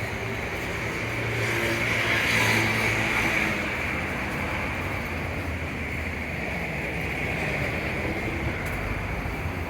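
City street traffic: engines running, with a vehicle passing, loudest about two and a half seconds in.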